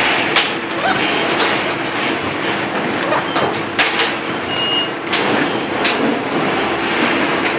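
Automatic horizontal flow wrap machine running, a steady mechanical hum with repeated sharp clacks from its wrapping and sealing mechanism. A short high beep sounds about two-thirds of the way in.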